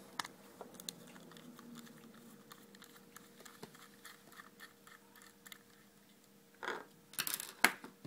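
Small cross-head screwdriver working a screw out of a plastic keypad housing: faint, scattered scratchy ticks. Near the end comes a short cluster of louder plastic clicks and rattles.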